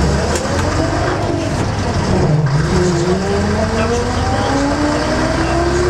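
AEC Regent V double-decker bus's diesel engine and Monocontrol transmission heard from inside the bus while driving. The pitch drops briefly about two seconds in, then climbs steadily as the bus gathers speed.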